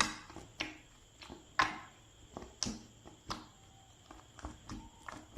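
Slime being worked by hand, giving irregular sharp pops and clicks, a louder one about every second with smaller ones in between.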